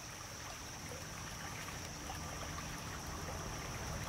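Small creek's water flowing and trickling, a steady rush, with a steady high-pitched hiss above it.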